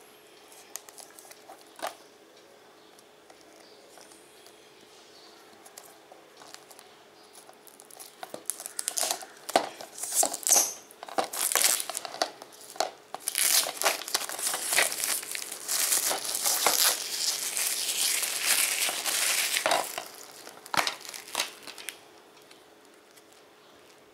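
Plastic shrink-wrap being torn and peeled off a DVD case, crinkling loudly for about twelve seconds after a quieter start of small fiddling clicks. A few sharp plastic clicks follow near the end.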